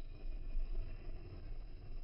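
Background room noise: a low, uneven rumble with faint steady high-pitched tones, and no distinct sound event.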